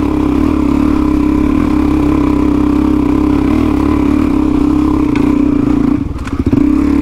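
Suzuki DR-Z400 single-cylinder four-stroke trail bike engine pulling steadily under load on a steep hill climb. About six seconds in the throttle eases off briefly and the engine drops in speed, then picks up again.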